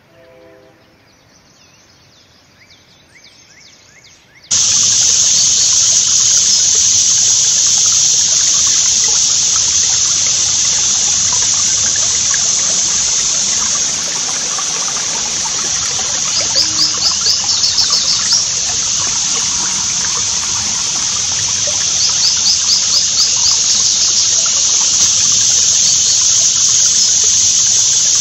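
About four seconds in, shallow creek water starts up loudly, trickling and running steadily over a shallow bed. Twice a bird gives a short, rapid trill of repeated high notes.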